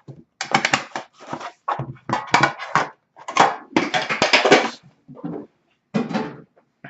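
Plastic shrink wrap crackling and tearing in a run of irregular bursts as a sealed trading-card box is opened.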